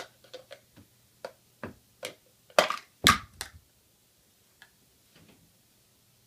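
Toy kitchen pieces being handled by a small child: a run of light clicks and knocks, with two louder clatters about two and a half and three seconds in, then mostly quiet.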